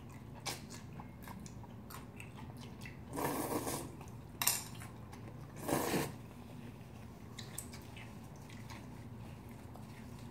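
Close-miked eating: slurping up bibim naengmyeon (spicy mixed cold noodles) and chewing, with three short, louder slurps between about three and six seconds in.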